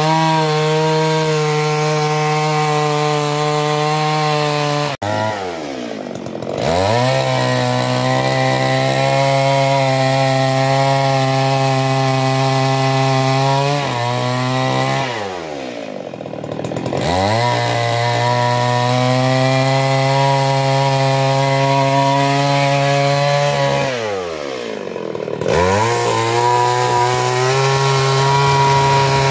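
Stihl MS 382 two-stroke chainsaw held near full throttle, ripping a log lengthwise. Three times the engine speed sags briefly and climbs back up before running steady again.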